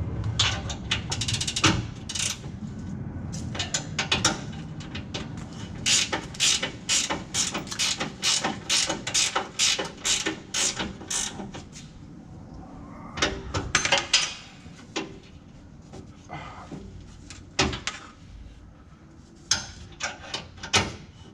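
Hand ratchet wrench working a bolt: spells of sharp clicks, about two to three a second in the longest run, with pauses between spells.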